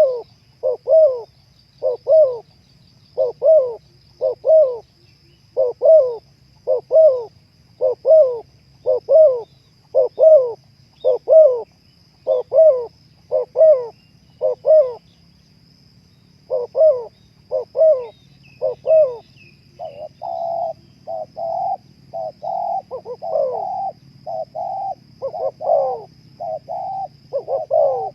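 Spotted dove cooing over and over, its short coos coming in a steady rhythm of about one a second; the calls pause briefly about halfway through, then come faster and overlapping near the end.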